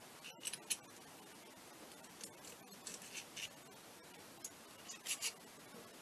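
Faint, scattered clicks and clinks of small metal engine parts being handled and fitted on a partly dismantled scooter engine, with a small cluster about half a second in and another about five seconds in.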